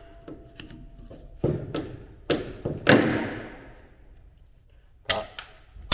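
About five knocks and clunks of things being handled, the loudest near the middle with a fading tail, one carrying a short metallic ring.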